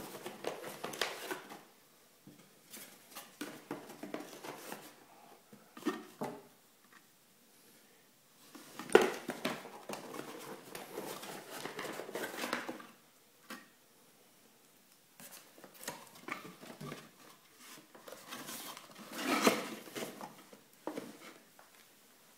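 Cardboard box and packing being handled by hand: irregular rustling, scraping and light knocks in several bursts with short quiet gaps between them.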